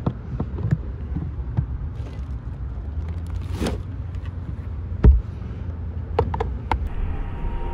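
Lid of a Lifetime 77-quart plastic hard cooler being opened and shut, with scattered clicks and knocks, a short rustle, and one loud thump about five seconds in. A steady low rumble of nearby road traffic runs underneath.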